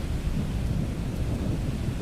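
Thunderstorm: rain falling steadily under a continuous low rumble of thunder.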